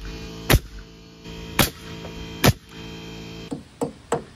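Pneumatic framing nailer firing three nails into 2x4 studs, sharp single shots about a second apart. Near the end come a few lighter taps.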